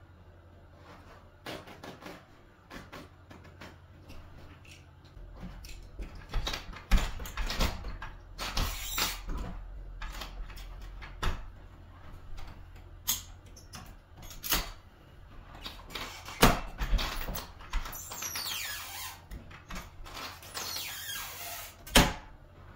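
Metal tube sections of a carpet power stretcher being handled and fitted together: a series of clanks, clicks and knocks, with metal sliding and scraping against metal, and a sharp knock near the end.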